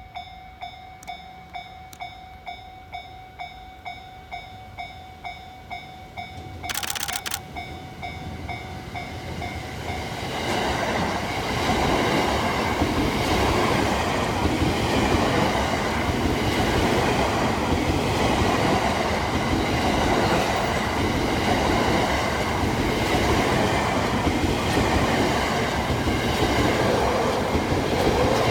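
Japanese level-crossing alarm bell ringing at about two strikes a second, with a short loud burst about seven seconds in. Then a JR West 681/683 series electric limited express train passes the crossing: its running and wheel noise builds about ten seconds in and stays loud, with the crossing bell still sounding underneath.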